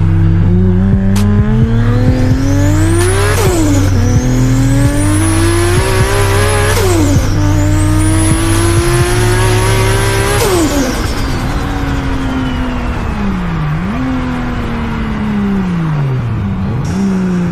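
Toyota Supra's big-turbo 2JZ straight-six accelerating hard through the gears, with the revs climbing and dropping sharply at two upshifts, and a high turbo whistle rising with each pull. About ten seconds in, the throttle is lifted and the revs and whistle fall away as the car slows.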